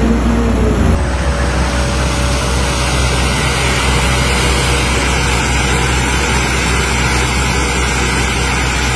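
Hitachi Zaxis excavator's diesel engine running steadily with a deep rumble. A tone falls in pitch and stops about a second in.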